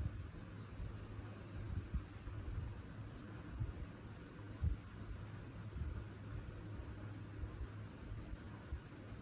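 Crayon scratching back and forth on paper as a drawing is coloured in, with a few soft low knocks now and then.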